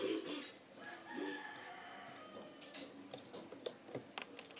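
A rooster crowing, one drawn-out call about a second in, over light clicks and rustles of a cardboard juice carton and a thin stick being handled.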